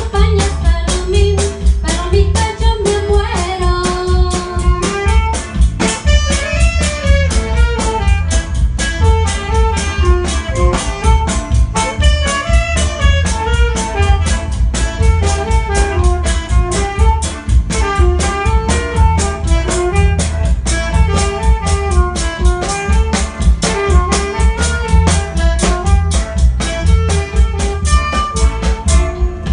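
Live band playing an upbeat song: an electronic drum kit keeps a steady beat under a Ketron keyboard, electric guitar and saxophone, with singing.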